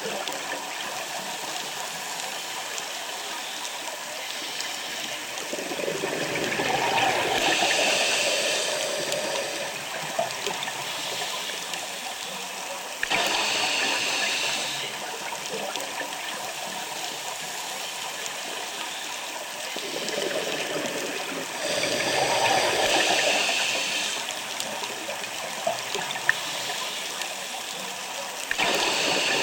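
Scuba diver's breathing underwater through a regulator: a hiss and a rumbling burble of exhaled bubbles come back about every seven or eight seconds, over steady water noise.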